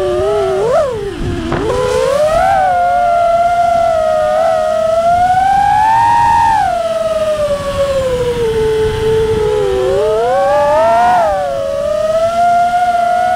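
FPV quadcopter's brushless motors whining, the pitch sliding up and down with the throttle: a sharp drop and punch back up about a second in, a slow climb to a peak near the middle, a dip, then another quick rise and fall near the end. A low rush of air noise runs underneath.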